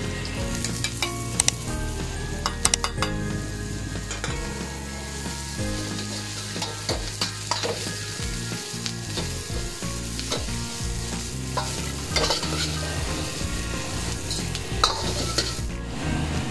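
Broccoli, onion and carrot sizzling in hot oil in a wok on high flame while a metal wok ladle stirs and tosses them. Sharp clinks of the ladle against the pan come at irregular moments throughout.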